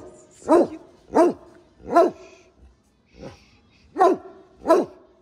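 Large dog barking repeatedly, single loud barks about one every two-thirds of a second, with a break of about two seconds midway before two more barks.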